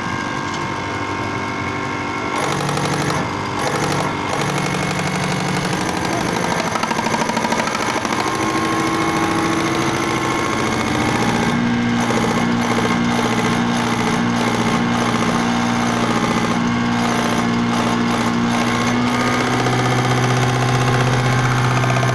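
Diesel injection-pump test bench running a Cummins diesel injection pump: a steady mechanical hum and whir as it pumps fuel through the injectors into the measuring glasses during a flow test. The hum shifts in pitch about halfway through and strengthens near the end.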